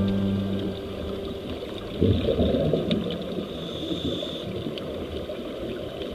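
Muffled underwater rushing and bubbling of water, with a louder surge about two seconds in and a few faint clicks.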